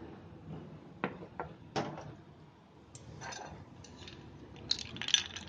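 Kitchenware clinks: a few sharp taps of glass about a second in, then near the end a quick run of bright clinks from a steel spoon and ice cubes.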